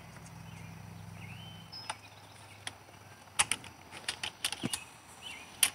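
Sharp, irregular plastic clicks and knocks from hands working the Stihl BG 86 blower's top handle and throttle trigger, after a faint low hum fades out about two seconds in. Faint bird chirps come and go.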